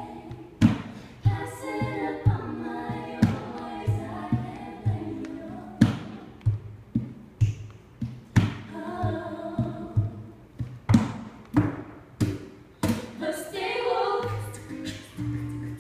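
Two acoustic guitars played with a regular sharp, percussive beat, accompanying young women's voices singing together in harmony.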